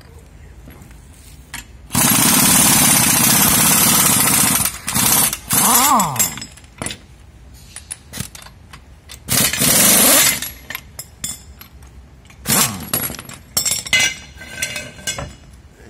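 Pneumatic impact wrench running on a strut assembly nut: one long hammering burst of about three seconds, then several shorter bursts, the air motor's pitch rising and falling as it spins up and down.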